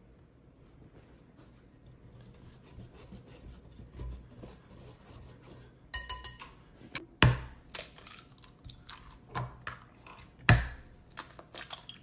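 A wire whisk stirring flour in a glass bowl with a soft, dry scratching, then a brief ringing clink about six seconds in. Two sharp cracks about three seconds apart, the loudest sounds here, as eggs are cracked, followed by small clicks of shell.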